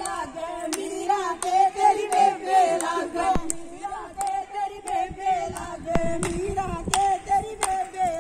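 A group of women singing together in unison while clapping their hands in a steady rhythm, about two claps a second.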